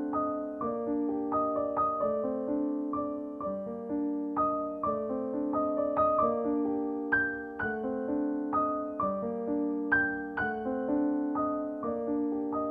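Soft background piano music: gentle, evenly paced notes and chords.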